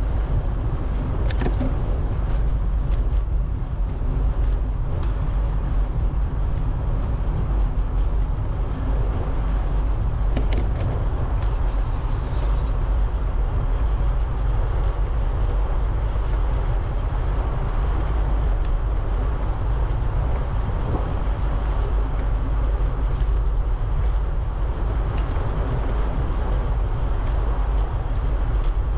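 Bicycle riding along a path: steady wind rumble on the microphone and rolling tyre noise, with a few scattered sharp clicks.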